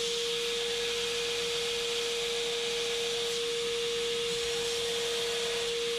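Belt grinder running steadily: a constant hum with one unchanging tone over a steady hiss.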